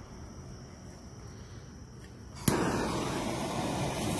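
A firework fuse is lit about two and a half seconds in: a sharp snap, then a steady sparking hiss as the fuse burns down on top of a mortar tube.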